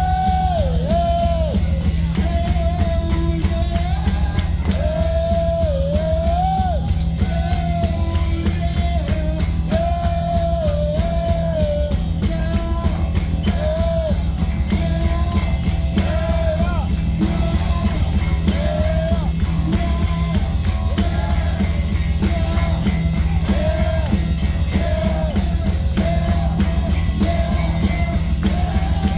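A live rock band playing loud, with electric guitar, bass and fast, steady drumming under a singer who holds and bends sung notes.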